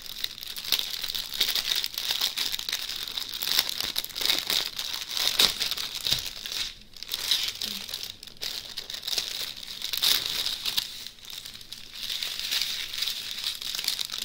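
Clear plastic packaging crinkling and rustling as a plastic sleeve of small bagged rhinestone drills is unwrapped and the bags are pulled out, with a couple of short lulls partway through.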